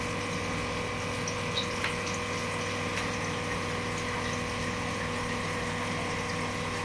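Aquarium submersible pump and air-stone aerator running: a steady electric hum over the bubbling of water, the added aeration for a tank short of oxygen.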